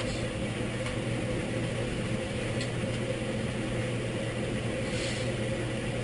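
Steady low background hum, with a few faint clicks and a light rustle near the end.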